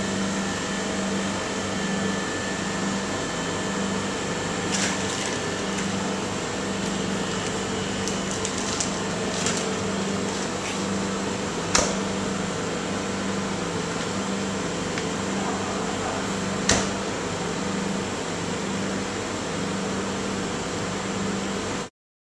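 Steady mechanical hum, like a ventilation fan running, with a low hum pulsing on and off about once a second. A few sharp clicks sound through it before everything cuts off suddenly near the end.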